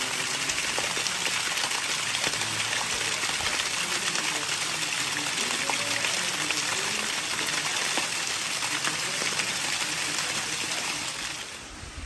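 Small waterfall splashing down a rock face: a steady rush of falling water that fades off near the end.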